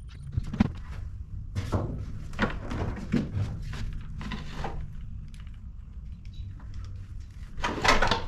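Irregular knocks and thuds, several spaced about a second apart with a louder one near the end, as wood and hardware are handled and knocked against a wall during mounting.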